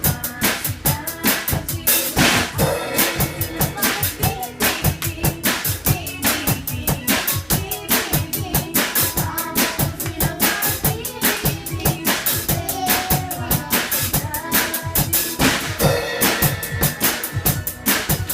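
A drum kit played in a fast, steady beat, with bass drum, snare and cymbals hitting several times a second, over music that has pitched instruments.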